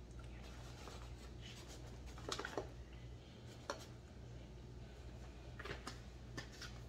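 Faint, scattered scratching and light clicks from food and kitchen items being handled, a few short bursts over a steady low hum.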